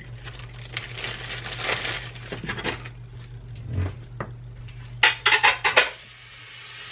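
Dishes and utensils handled on a kitchen counter: scattered clinks and knocks, with a quick run of louder clatters about five seconds in, over a low steady hum.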